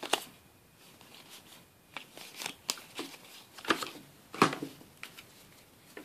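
Yu-Gi-Oh! trading cards being handled: a handful of short papery clicks and rustles as the cards are slid against each other and squared up, spaced unevenly.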